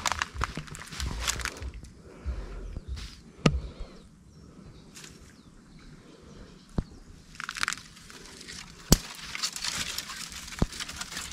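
Dry grass rustling and crackling as it is moved through, with four sharp snaps, the loudest about nine seconds in.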